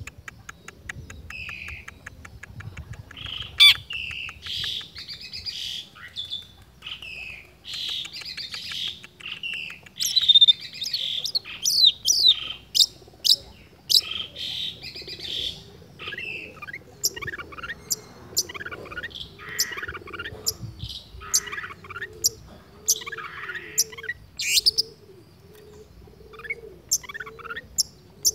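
Long-tailed shrike singing without pause, stringing together imitations of other birds' calls. It opens with a rapid trill, runs into varied warbled phrases, and about halfway through changes to sharp, short, high notes about two a second.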